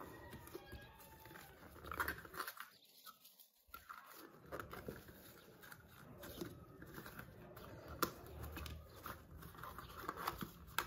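Faint rustling, crinkling and small clicks of thick cardstock being folded and pressed into a small box by gloved hands. The sound drops to near silence for about a second and a half a couple of seconds in.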